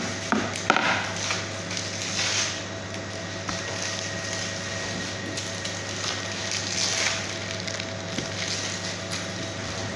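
Thin plastic sheet rustling and crinkling as it is handled and spread over trays of dough, with a few louder crinkles, over a steady background hum.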